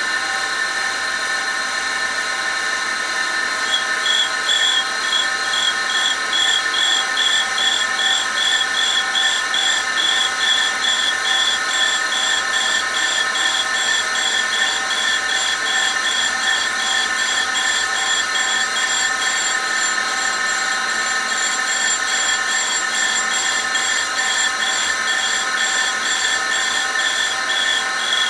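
Precision grinder running with a steady spindle whine. From about four seconds in, a high grinding hiss joins it, pulsing about twice a second as the wheel takes light cuts on the work turning in the spin jig.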